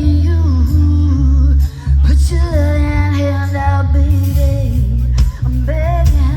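Live band playing rock-pop with a loud, heavy bass line and guitar, while a singer holds long, wavering notes without clear words.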